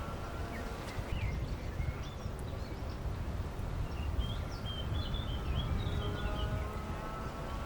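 Small birds chirping in short, quick calls over a steady low rumble of outdoor ambience.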